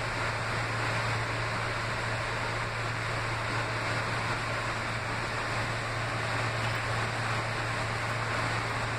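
Interior noise of an R160B subway car in motion: a steady rumble and hiss of the running train with a constant low hum underneath.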